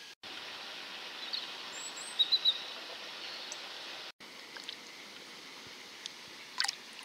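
Steady outdoor background hiss with a few short, high bird chirps about two seconds in, and a couple of faint clicks near the end.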